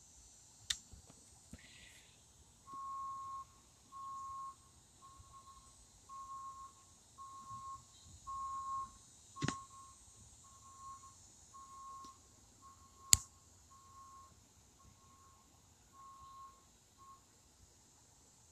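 Electronic beeping on one steady pitch, about one beep a second of uneven length, starting about three seconds in and stopping shortly before the end. Three sharp clicks cut through, the loudest about thirteen seconds in.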